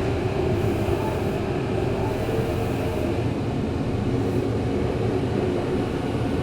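Interior running noise of a Tokyo Metro 03 series subway car retrofitted with IGBT-VVVF traction control: a steady rumble of wheels on rail with a faint, even hum from the traction equipment.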